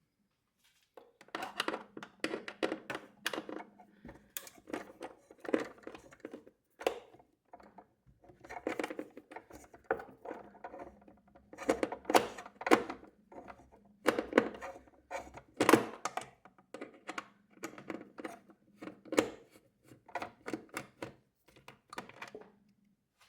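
Irregular clicks, taps and knocks, many close together, as the refrigerator icemaker's plastic housing and its screw are worked loose by hand. A faint steady low hum runs underneath.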